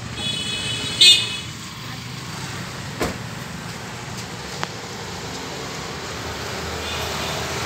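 Steady background noise of distant road traffic, with a short high-pitched tone about a second in and a sharp click about three seconds in.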